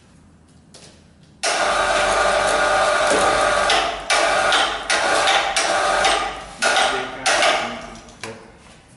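Electric chain hoist motor and chain running as the hoist is worked from its push-button pendant to set a heavy equatorial mount on its pier. It starts abruptly about a second and a half in, runs steadily for a few seconds, then is jogged on and off in short bursts before stopping near the end.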